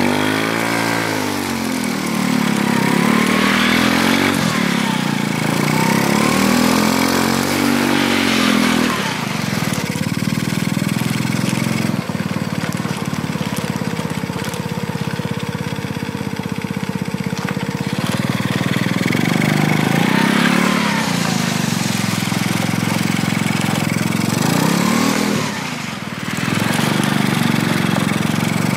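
Small kart engine on a motorized tricycle running under way, its pitch rising and falling as the throttle is repeatedly opened and eased. It holds a higher, steadier note for several seconds in the middle, then comes off the throttle briefly near the end before picking up again.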